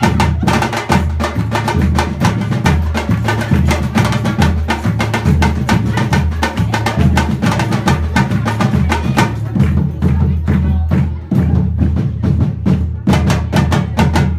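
Loud drum-led percussion music: a fast, steady beat of sharp strikes over a deep bass line.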